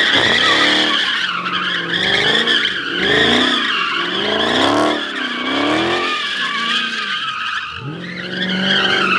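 Dodge Charger spinning donuts: tires squealing continuously while the engine revs rise and fall about once a second, sagging briefly near the end before climbing again.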